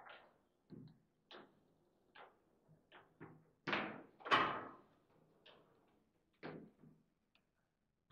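Foosball table in play: the ball is struck by the rod-mounted figures and bounces off the table's walls, making about a dozen irregular knocks and thunks. The two loudest come close together about four seconds in.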